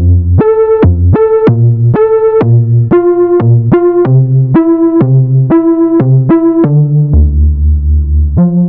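Moog Sub 37 analog synthesizer playing a short plucked patch with reverb: a quick run of clipped notes, about three a second, over lower bass notes. Near the end it settles on a longer low note.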